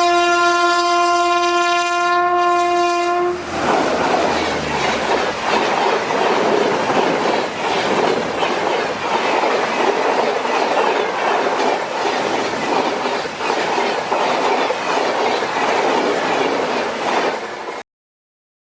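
Train horn sounding one long blast of about three and a half seconds, followed by the rumble and clickety-clack of the train running along the track. The sound cuts off suddenly near the end.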